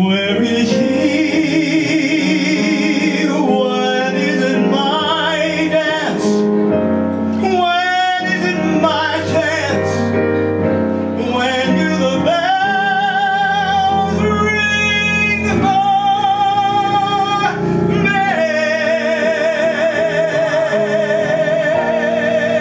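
Male cabaret singer with keyboard accompaniment, holding long notes with a wide vibrato. A final sustained note starts about four seconds before the end.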